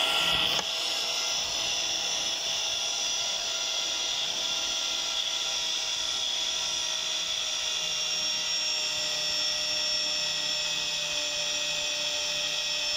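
Electric pipe-threading machine running steadily, its motor and gear drive giving a constant whine while the die head cuts a thread on a steel pipe turning in the chuck. The level dips slightly about half a second in, then holds steady.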